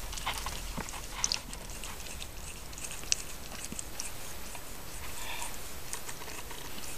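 17-day-old Siamese kittens nursing from their mother: soft, irregular wet sucking and smacking clicks, with a faint short squeak about five seconds in.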